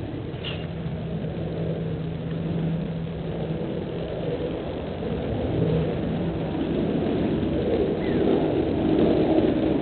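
A motor engine running steadily, growing louder toward the end, with a couple of faint high chirps over it.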